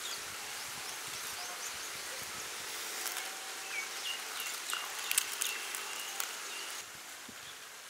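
Pan-fried banana-leaf wrapping crinkling and rustling as hands pull it open, with a few sharp crackles of the crisp leaf, the loudest about five seconds in.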